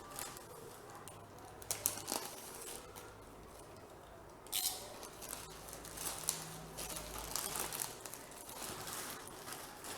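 Packaging being handled and opened: cardboard and paper rustling and crinkling, with a few sharp clicks near 2 s and a louder one about 4.5 s in, and busier rustling in the second half.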